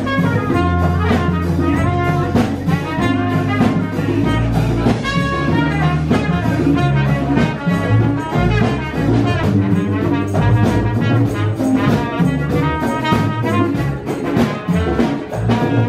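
Live jazz band playing, with a trumpet carrying the melody over drums.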